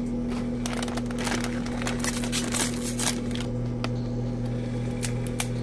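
Plastic instant-ramen packet crinkling and rustling as it is opened and the dry noodle block taken out, with sharp clicks, densest in the first three and a half seconds. Under it a steady low hum from a microwave heating hot dogs.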